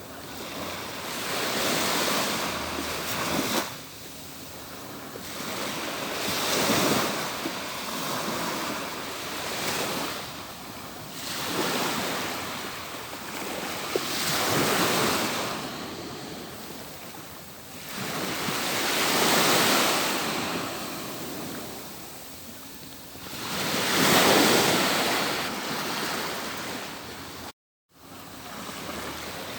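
Atlantic surf breaking on a beach, a noisy wash of waves that swells and fades every four or five seconds. The sound cuts out completely for a moment near the end.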